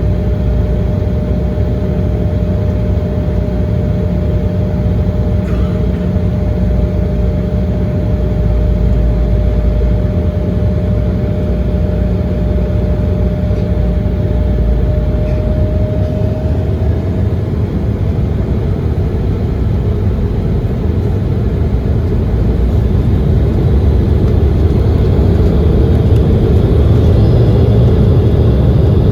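Jet engine noise inside the cabin of an Embraer 170, from its GE CF34-8E turbofans: a steady drone with a constant hum that fades out about halfway through. Near the end the engines grow louder with a rising tone, as thrust builds for the takeoff.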